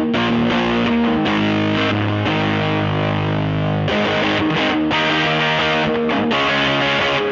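Fender '52 Telecaster played through a JHS Bender fuzz pedal into a 1966 Fender Vibrolux Reverb combo amp, close-miked. It plays held chords and riffs in an aggressive, saturated fuzz tone, with the amp pushed into breakup.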